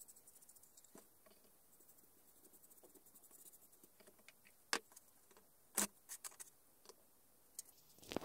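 Quiet handling sounds: a few light clicks and knocks, the loudest two about five and six seconds in, as a wooden box is set down on plastic painter's pyramids and a paint brush is laid on a metal oil tin.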